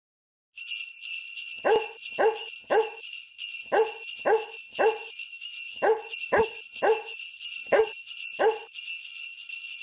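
Sleigh bells jingling steadily while a dog barks in a regular pattern: three barks, a pause, three barks, a pause, three more, then two. It sounds like an edited Christmas intro jingle that starts and stops abruptly.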